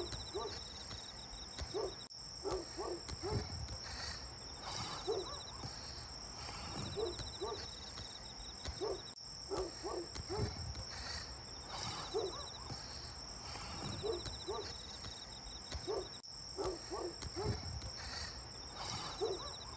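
Night-time insect chorus: a steady high cricket trill with bursts of rapid chirping every few seconds. Short low calls come and go throughout.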